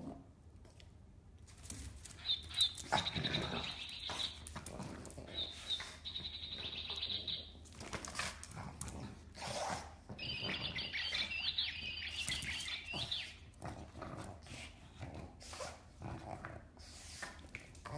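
Pug chewing and shaking a plush frog toy, drawing long, rippling high squeaks from the toy's squeaker several times, with knocks as the toy is tossed and hits the floor.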